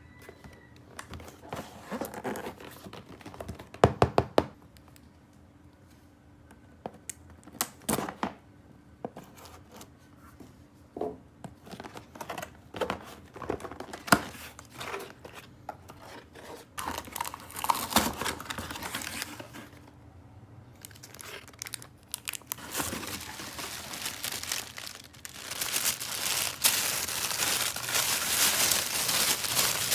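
Plastic toy packaging being handled, crinkled and torn open, with scattered taps and a quick run of clicks about four seconds in. About two-thirds of the way through, a continuous crinkling of plastic wrap starts and grows louder.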